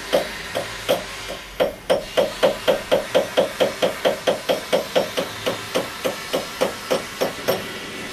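Small jeweller's hammer beating metal on a steel bench block: a few spaced strikes, then a steady run of about four blows a second that stops shortly before the end.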